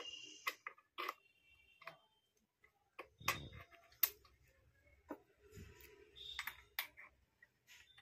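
Faint, scattered metal clicks and taps as crimping dies are handled and fitted into the head of a battery-operated hydraulic crimping tool, a few of them ringing briefly.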